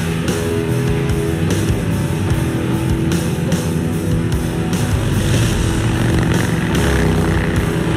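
Rock music with guitar and a steady drum beat, over the sound of a group of motorcycles riding together.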